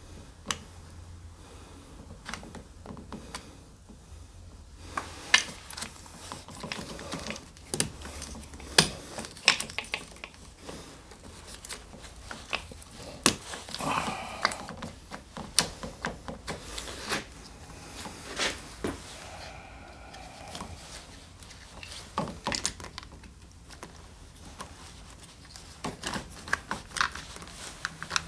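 Hand work on a Yamaha NMAX 125's right handlebar: scattered, irregular plastic clicks and taps as a heated grip and the right switch housing are handled and fitted, with a short rubbing sound about halfway through.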